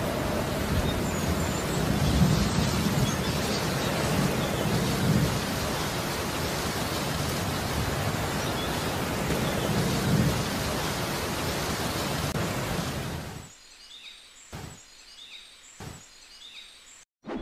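Heavy rain falling steadily, with low rumbles of thunder underneath. The rain stops abruptly about 13 seconds in, leaving a couple of faint drips and a few faint high chirps.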